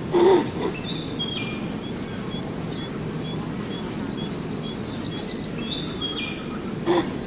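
Small birds chirping in a steady run of short high notes over constant outdoor background noise, with two brief louder animal sounds, one just after the start and one near the end.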